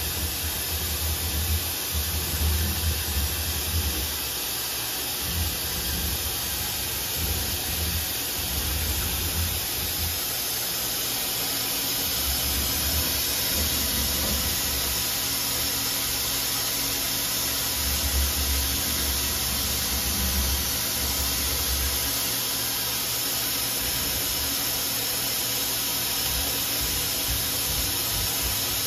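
Tsugami B0205-III Swiss-type CNC lathe running, a steady hiss from the machining area, with a low rumble that comes and goes through the first two-thirds and then fades.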